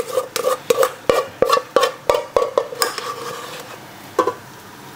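Utensil scraping and knocking against the inside of a cooking pot while rice is stirred and scooped, about three sharp strokes a second, thinning out after about three seconds, with one last knock near the end.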